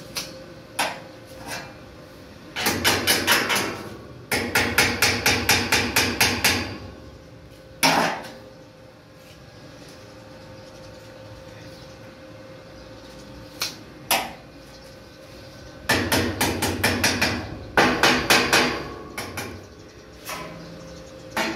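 Hammer blows in quick runs of about five strikes a second, four runs in all, with single strikes in between.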